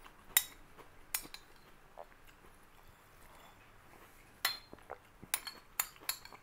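Metal spoon clinking against a small glass bowl as it scoops the food. There are two sharp clinks near the start and a quick run of four or five near the end.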